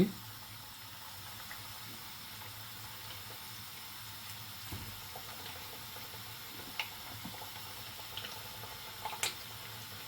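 Marinated chicken pieces coated in cornflour deep-frying in hot oil: a steady bubbling sizzle with a few faint pops and clicks now and then.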